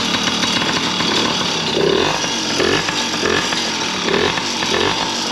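Small dirt bike engine running steadily with a buzzing note and a few brief swells. It runs again on a cleaned spark plug, and the owner suspects an exhaust leak.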